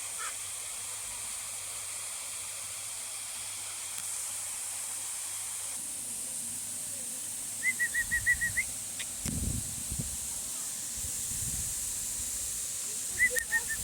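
Birds calling in short runs of rapid, evenly repeated high notes, heard twice, about 8 s in and again near the end, over a steady high-pitched hiss. A low rumble comes about 9 to 10 seconds in.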